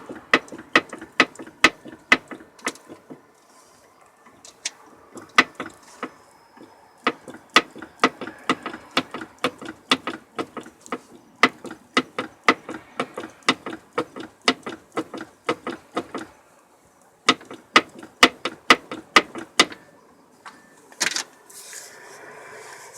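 Rover Mini steering rack knocking repeatedly, about three sharp clunks a second, the sign of play (looseness) in the rack. The knocking pauses briefly about sixteen seconds in and stops near twenty seconds.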